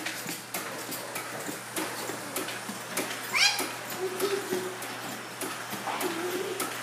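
A small child's high squeal rising sharply about halfway through, with short cooing vocal sounds near the end, over repeated light knocks from the bouncing doorway jumper.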